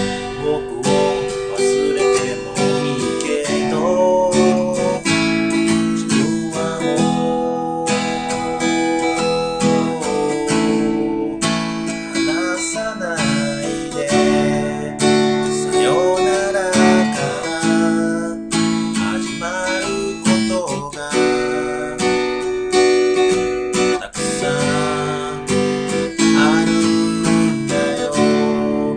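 A man singing over his own strummed acoustic guitar. The chords are strummed in a steady rhythm, and his voice carries the melody above them.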